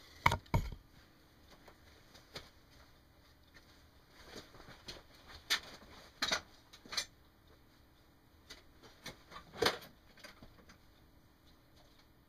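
Workbench handling noise: a couple of knocks under a second in as a soldering iron is laid down on the bench, then scattered light clicks and taps.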